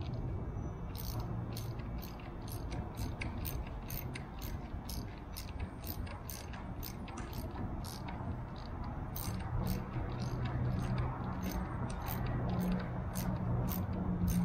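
Hand ratchet wrench clicking in short, irregular runs as a nut on the tailwheel steering arm's rod end is turned, over a steady low hum.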